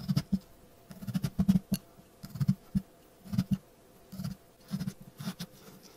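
Kitchen knife sawing through a pumpkin's rind and flesh in short, irregularly spaced strokes, each a dull scrape with small clicks.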